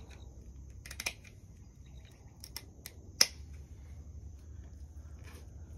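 Clippers snipping the fins off a whole snapper: a string of sharp clicks, the loudest a little over three seconds in. A steady high whine runs underneath.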